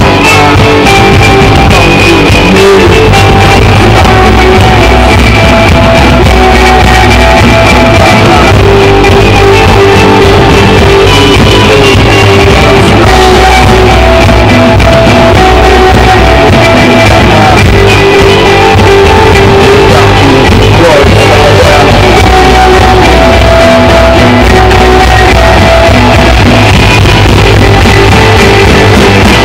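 Live rock band playing loud and continuously: a male singer's vocals over distorted electric guitars, bass and a drum kit, heard through the stage PA.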